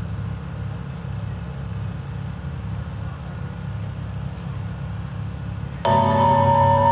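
A steady low hum of outdoor background noise, then about six seconds in loud recorded dance music starts abruptly over the PA system, the backing track for the umbrella dance.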